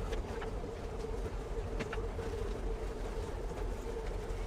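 Motorboat engine running steadily: a low rumble with a steady mid-pitched hum.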